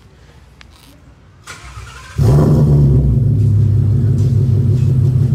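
Ford Mustang GT 5.0 V8 started: a brief crank about a second and a half in, then the engine catches with a loud flare just after two seconds and settles into a steady idle. It runs through a true dual catback exhaust with X-pipe, downpipes and test pipe, so the catalytic converters are gone.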